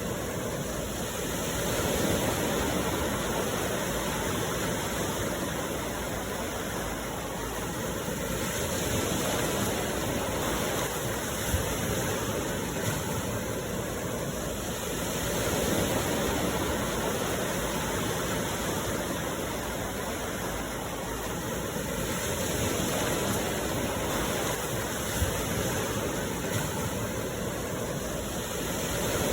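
Sea waves washing ashore, a steady rush that swells and eases about every six to seven seconds.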